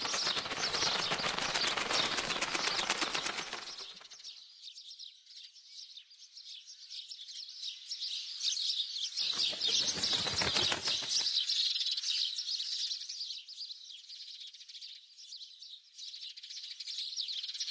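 A flock of small birds taking flight: a dense flutter of many wings for the first few seconds and again about nine seconds in, over continuous high chirping and twittering.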